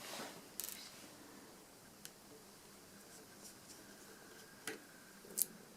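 Faint scratching of a small screwdriver turning out a tiny screw from the tablet's internal panel, with a few light clicks.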